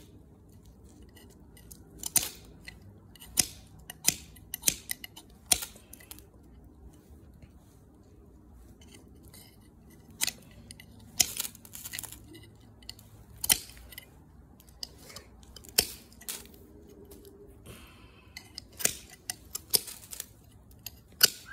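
Ferrocerium (ferro) rod scraped again and again with a striker, each stroke a short, sharp, raspy scrape, in irregular runs with a quiet spell of a few seconds in the middle. The sparks are not yet lighting the tumbleweed tinder.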